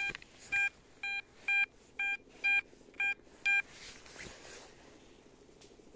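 XP Deus metal detector sounding a target signal: eight short, identical beeps at about two a second, then a brief scuffing noise.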